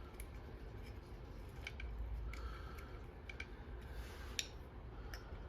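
A few scattered small clicks and ticks of a hand tool working screws out of a car door panel, with a short faint squeak about halfway through, over a steady low hum.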